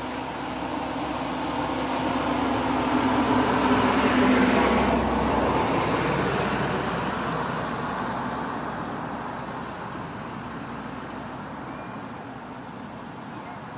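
A motor vehicle passing by: engine and road noise that swells to its loudest about four to five seconds in, then slowly fades away.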